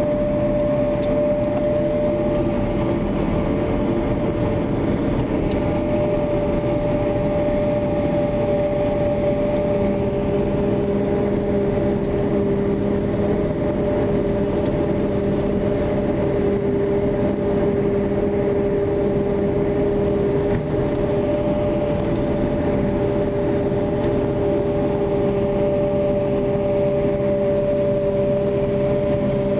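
Maize harvesting machinery, a forage harvester with tractors, running steadily: a constant high whine over the engine drone.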